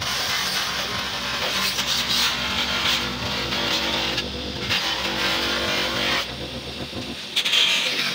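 Bench buffing motor running with a steady hum while a clear plastic light lens is pressed against its spinning white buffing wheel, giving a rushing, hissing rub. The rubbing swells and fades with each pass of the lens, dips shortly before the end, then comes back loudest.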